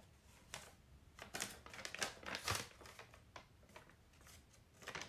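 A printed paper leaflet rustling and crinkling as it is handled and unfolded, in short irregular crackles: a cluster in the middle and one more near the end.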